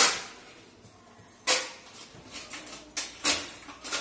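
Handling noises as clothes and items are sorted: about five short, sharp rustles or snaps of cloth and bags, the loudest right at the start, with quiet handling between.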